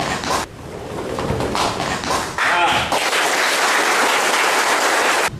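A group of people applauding, starting about two and a half seconds in after a short shout and stopping suddenly near the end. Before that, a few sharp thumps and slaps with some voices.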